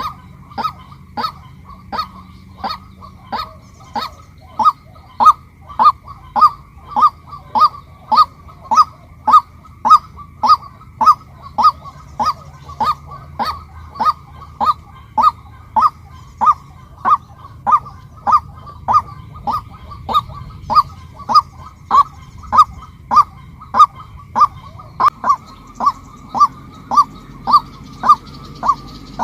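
Female White-breasted Waterhen calling, one short harsh note repeated very evenly about twice a second.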